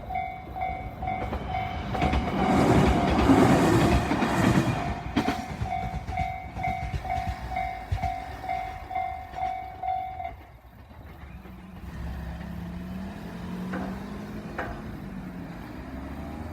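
Japanese level-crossing warning bells ringing in a steady pulsing beat while a local train passes, its wheel noise loudest a few seconds in. The bells stop about ten seconds in, leaving a low hum with a wavering tone.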